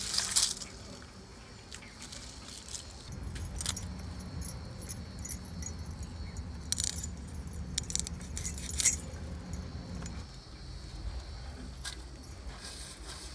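Small fish being scaled by scraping them against a curved iron cutting blade, giving a few sharp metallic scrapes. Firewood sticks clatter briefly at the start.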